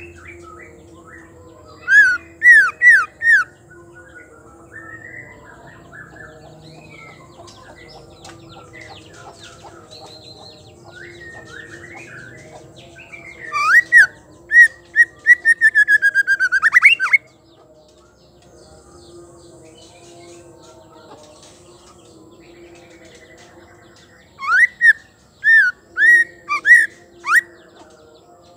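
White-rumped shama singing loud, clear whistled notes that sweep up and down, in three bouts: a few notes about two seconds in, a longer rapid run in the middle, and several notes near the end. Soft twittering fills the gaps between phrases.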